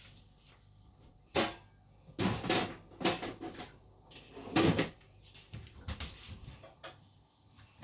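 Kitchen clatter: a run of knocks and bangs from doors and things being handled. There is a sharp knock about a second and a half in, several more over the next two seconds, and the loudest near the middle, then smaller taps.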